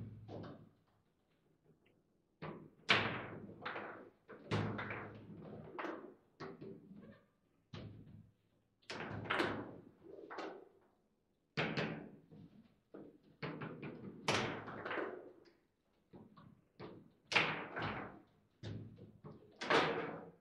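Table football in play: sharp knocks and clacks as the plastic figures strike the ball and the ball and rods hit the table, coming in quick irregular flurries with short pauses between.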